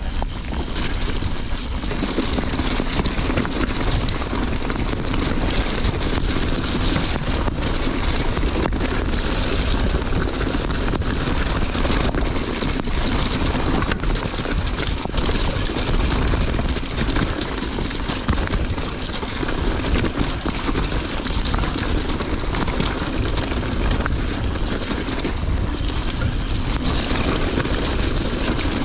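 Wind buffeting the camera microphone as a mountain bike rolls over a wet, stony moorland trail, with tyre noise and a few knocks from the bike over the rocks.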